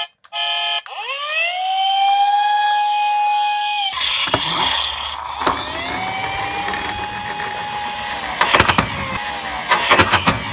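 Toy police car's electronic siren wailing: the pitch rises and holds, then after a cut wails up and holds again before falling away. Near the end, a few sharp plastic clicks and knocks as the toy car rolls down and off the wooden ramp.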